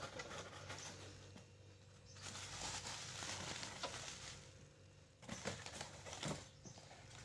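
Plastic packaging and bubble wrap rustling and crinkling as a plastic tub is handled and lifted out of a cardboard box, with a couple of light knocks near the end.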